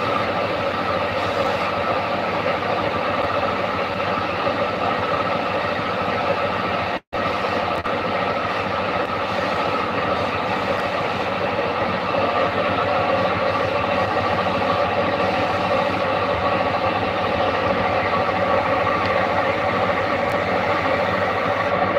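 Steady mechanical drone of workshop machinery, a dense hiss with several held tones, which cuts out for an instant about seven seconds in.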